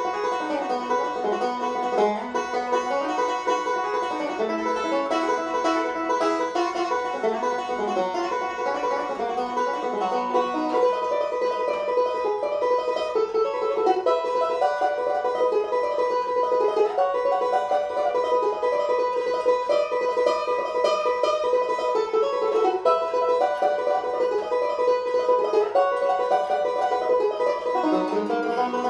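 Five-string resonator banjo played solo: a fast bluegrass tune picked in a steady stream of quick, bright rolling notes.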